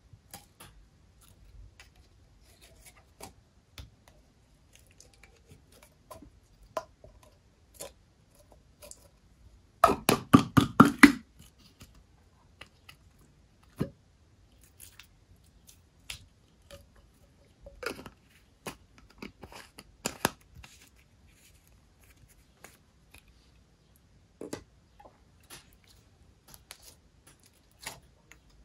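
Slime being squeezed and mixed by hand, giving scattered sticky clicks and pops. About ten seconds in comes a quick run of about eight louder pops in just over a second.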